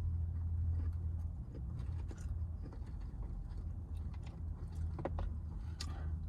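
Steady low hum inside a car's cabin, with faint chewing and a few soft clicks of food being eaten, the clearest near the end.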